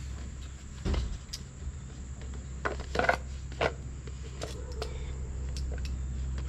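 Small metal engine valve parts clicking and clinking as they are handled: a few sharp separate clicks, the loudest about three seconds in, over a steady low hum.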